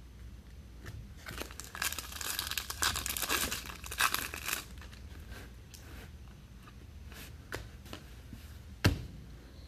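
A foil trading-card pack wrapper being torn open and crinkled for a few seconds, followed near the end by a single sharp tap.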